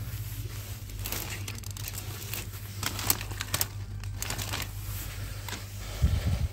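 Clear plastic plant sleeves crinkling as potted houseplants are handled and pushed aside, in many short rustles. A steady low hum sits underneath, and there is a low bump about six seconds in.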